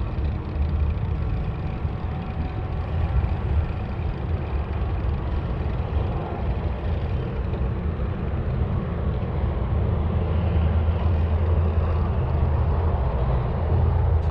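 Steady wind rush and rumble while riding, loudest in the low end, with traffic-like road noise; it grows slightly louder about ten seconds in.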